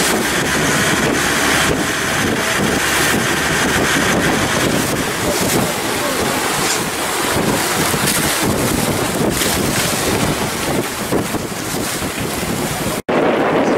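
Wind buffeting the microphone and water rushing past a fast-moving boat at sea. The sound drops out for an instant near the end.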